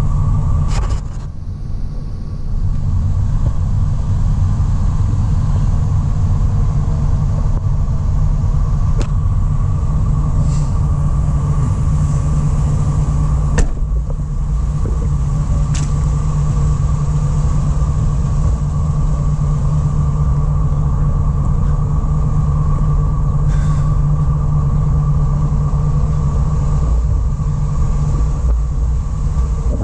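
2004 GMC Savana 3500's 6.0-litre V8 idling, a steady low rumble, with a few light clicks and one sharper click about halfway through.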